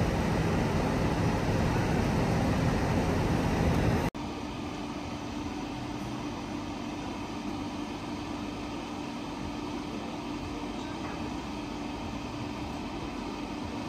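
Truck-mounted loader crane's diesel engine and hydraulics running steadily during a lift. About four seconds in the sound cuts off suddenly to a quieter steady hum with a single steady tone.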